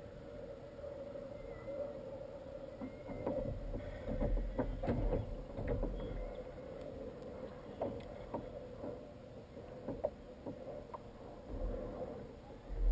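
Knocks and clicks against a plastic kayak hull as a small pike is reeled in and lifted aboard by hand. There are low thumps around the middle and again near the end, over a faint steady hum.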